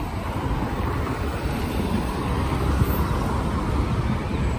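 Road traffic on a wide city avenue: cars and an articulated city bus driving past, a steady low rumble of engines and tyres.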